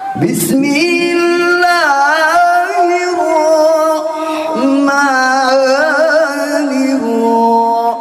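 A man reciting the Qur'an in the melodic tilawah style into a microphone, holding long ornamented notes that waver and trill. His pitch steps down lower about halfway through.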